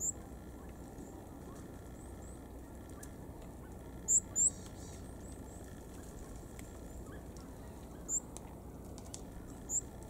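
Small songbirds giving short, very high, thin call notes: one at the start, a loud pair about four seconds in, one near eight seconds and one near the end, with a few fainter notes between, over steady low background noise.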